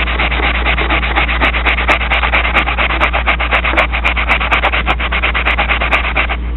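Foam-backed sanding pad rubbed by hand over a stainless steel knife blade in quick, even back-and-forth strokes, smoothing out a rough patch; the scraping stops abruptly near the end.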